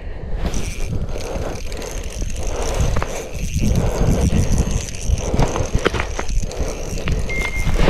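Spinning reel on a short ice-fishing rod being cranked, its gears whirring and clicking, as a hooked fish is reeled up through the ice hole.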